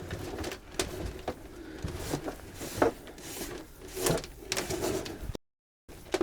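Irregular knocks, clicks and scraping of an old electrical cable being pulled through a caravan's wall by hand. The sound cuts out completely for about half a second near the end.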